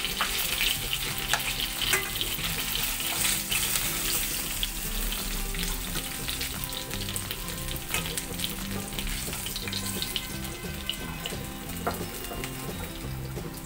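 Koi fish (climbing perch) sizzling in hot mustard oil in a wok, with a steady hiss and short taps and scrapes of a wooden spatula as the fried fish are lifted out. The sizzle eases slightly toward the end.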